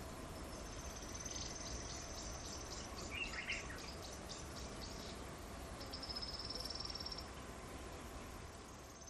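High-pitched insect trilling over low outdoor background noise, some stretches steady and others broken into short rapid pulses. A brief bird chirp comes about three seconds in.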